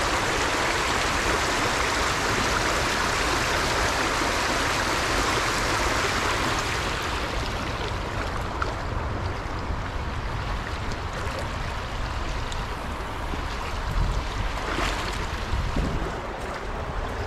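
Stream water rushing steadily. About seven seconds in the rush drops to a softer level, with low rumbling and a few light knocks near the end.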